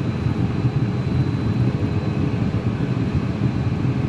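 Steady cabin noise inside a Cessna Citation M2 cockpit as it taxis with both Williams FJ44-1AP-21 turbofan engines running: a low, even rumble with a thin steady whine above it.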